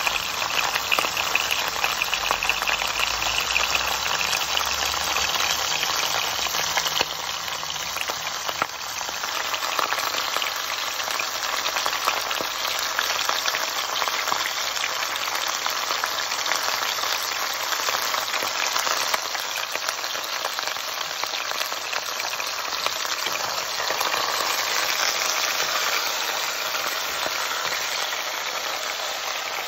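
Chicken pieces and sliced onion sizzling steadily in hot olive oil in a pot on high heat.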